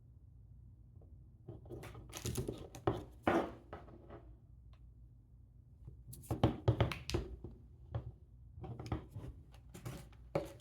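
Hands handling a small power supply and its packaging: two spells of rustling, clicks and light knocks, the first about one and a half seconds in and the second from about six seconds, over a low steady hum.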